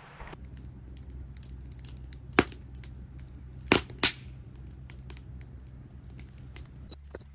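Wood fire crackling inside a stacked-brick pizza oven, with scattered small snaps and three loud pops near the middle, the last two close together.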